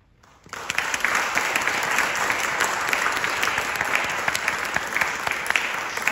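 Audience applauding, breaking out suddenly about half a second in and carrying on steadily.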